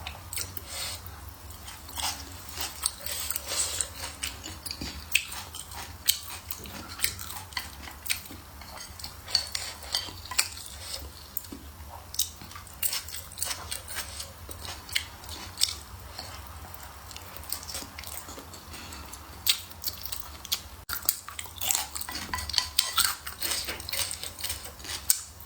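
Close-miked eating: chewing and biting, with frequent sharp, irregular clicks of utensils against a bowl, over a low steady hum.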